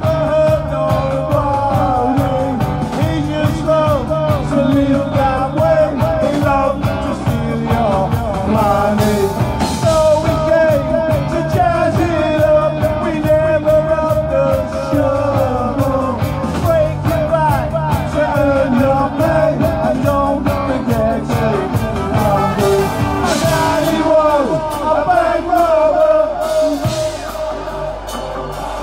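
Live band playing a loud rock song with a steady drum beat and a wavering melodic lead line; the low end of the beat thins out near the end.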